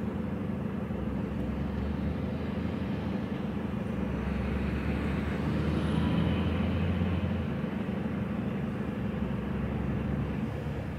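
Lorry's diesel engine idling with a steady low hum, heard from inside the cab while stopped, with road traffic going past; the sound swells for a few seconds around the middle, as a vehicle passes.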